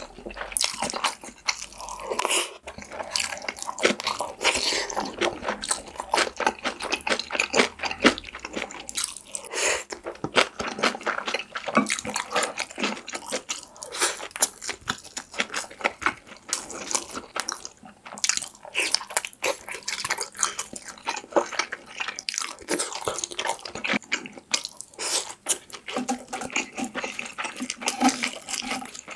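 Close-miked wet chewing and crunching of braised kimchi (kimchi-jjim), a dense, continuous run of small crackles and clicks from the mouth.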